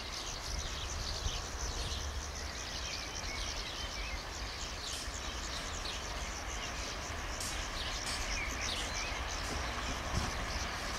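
Birds chirping again and again over steady outdoor background noise and a low rumble.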